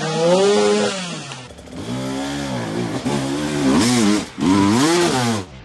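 Enduro dirt bike engine revving hard under load on a steep climb. Its pitch swings up and down with each throttle blip, in several quick blips in the second half, and it stops abruptly just before the end.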